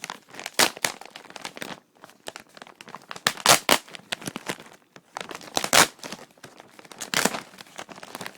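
A plastic mailer package being cut and torn open by hand: irregular crinkling and tearing with sharp rustles.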